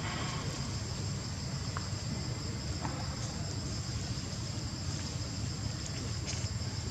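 Steady, high-pitched insect chorus over a continuous low rumble.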